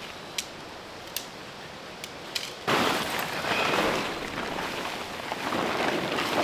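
A few light clicks, then from about three seconds in a sudden loud rustling and crunching close to the microphone that goes on unevenly.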